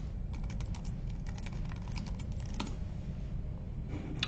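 Quick keystrokes on a computer keyboard as a login email and password are typed, stopping about two and a half seconds in, with one more click near the end, over a steady low hum.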